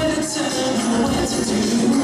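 Music playing steadily for a group stage dance.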